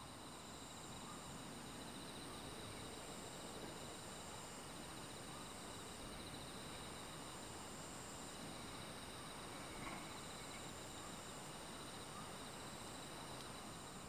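Night insects trilling steadily, several overlapping trills at different pitches, faint against a low background hiss.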